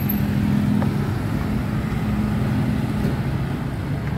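Road traffic: passing cars and motorcycles, with a steady engine hum that stops about three seconds in.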